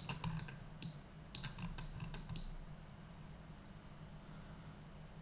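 Light clicks of a computer keyboard and mouse, several in quick succession over the first two and a half seconds, then quiet room tone with a faint steady low hum.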